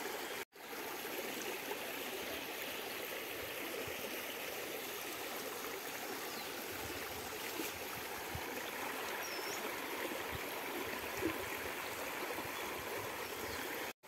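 Steady rushing of flowing water, even and unbroken, with a brief dropout about half a second in.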